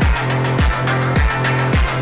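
Electronic dance music with a deep, falling kick drum a little under twice a second over a steady bass note and ticking hi-hats.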